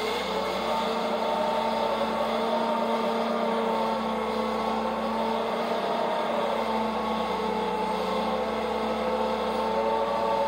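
LPG-fuelled Yale forklift running steadily while its mast lifts a tractor cab, an engine drone with a whine that bends up and down a few times.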